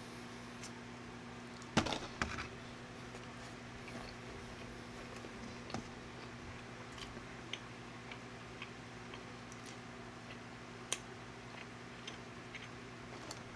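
A person chewing food at close range: quiet eating sounds with a few sharp clicks and ticks, the loudest a short cluster about two seconds in, over a steady low hum.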